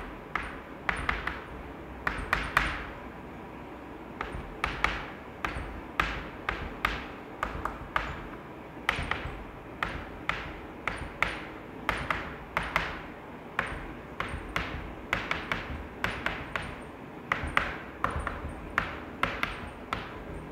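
Chalk writing on a blackboard: sharp taps and short scrapes in quick clusters, with brief pauses between letters.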